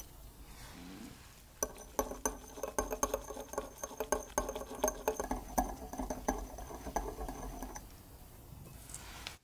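Wire balloon whisk beating milk and oil in a small glass bowl, its wires clicking rapidly against the glass. The whisking starts a little over a second in and stops about a second before the end.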